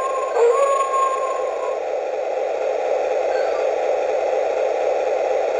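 Spooky sound effects played from a Halloween toy locomotive's small onboard speaker. A steady rushing noise runs throughout. Over it, a held tone breaks off briefly near the start, resumes, and stops about two seconds in.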